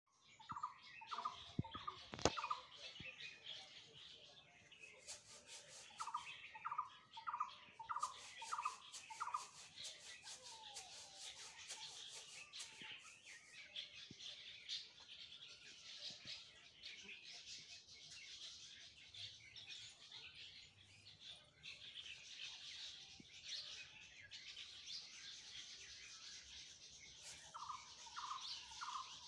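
Wild birds calling: one bird repeats a short call in runs of five or six quick notes near the start, about six seconds in, and again near the end. A continuous high chirping runs underneath, with two brief bursts of rapid ticking.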